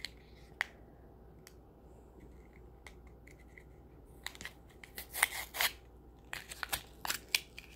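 A plastic snack wrapper is handled and torn open. A few faint clicks come first, then from about four seconds in there is a cluster of sharp crinkling and tearing sounds.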